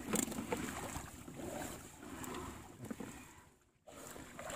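Sea water splashing and lapping around a small outrigger fishing boat, with wind on the microphone and a few light knocks. The sound cuts out completely for about half a second near the end.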